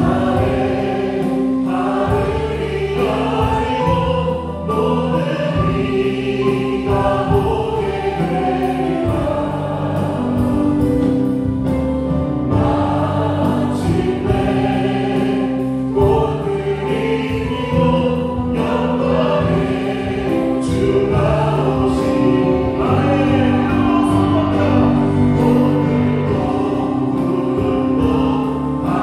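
Live church praise band, with a Yamaha Montage 8 keyboard, electric bass guitar and drum kit, playing a slow gospel hymn while a group of voices sings along. Sustained keyboard chords run under the singing, with steady cymbal ticks keeping time.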